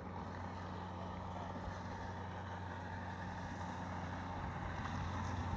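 Speedboat engine running at speed across open water: a steady low drone with a faint whine above it, growing slightly louder.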